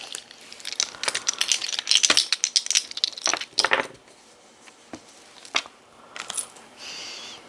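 Jewelry and plastic packaging being handled: a few seconds of dense crackling and clinking, then a few scattered clicks.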